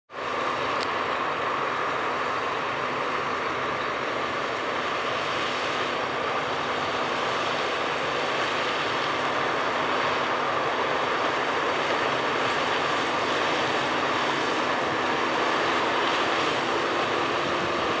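John Deere S680 combine harvesting corn: engine and threshing machinery running with a steady drone and a steady high whine, slowly getting a little louder.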